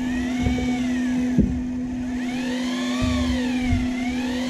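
Daiwa electric fishing reel's motor whining as it winds line, its pitch rising and falling about every two seconds, over a steady low hum.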